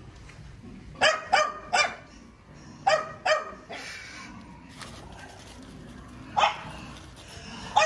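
Fifteen-week-old Belgian Malinois puppy barking in short, sharp, high barks, excited by ball play: a quick run of three, then two, then two more spaced out.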